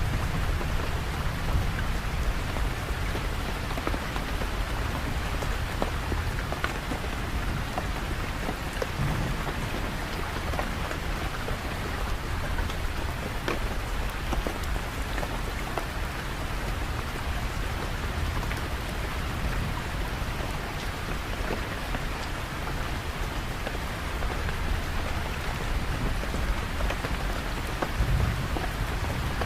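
Steady heavy rain falling and pattering on surfaces, with a low rumble underneath that swells briefly about nine seconds in and again near the end.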